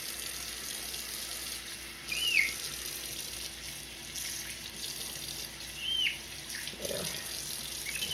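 Tap water running steadily into a kitchen sink. A baby capuchin monkey gives two short, high whistling cries that rise and fall, about two and six seconds in, in distress at being bathed.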